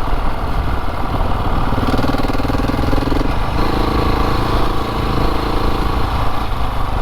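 Motorcycle engine running at low speed while being ridden slowly, a steady rumble whose note steps up a little about three and a half seconds in and eases back near the end.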